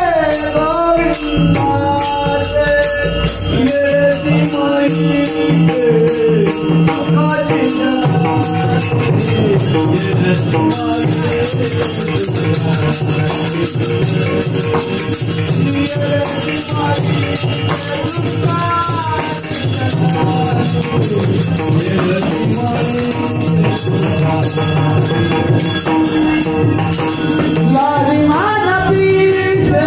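Devotional kirtan singing, with hand cymbals (tal) clashing in a steady rhythm over a pakhawaj barrel drum.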